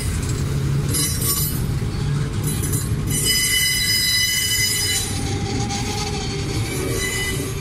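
Freight train of open steel wagons rolling past with a steady low rumble. The wheels squeal in high, steady tones from about three to five seconds in, with a shorter squeal around a second in.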